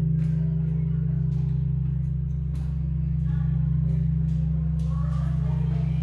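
The Pummerin, the great bronze bell of St. Stephen's Cathedral, humming with a deep, steady low tone after being struck, its higher partials already faded. Scattered light clicks and footsteps sound over it.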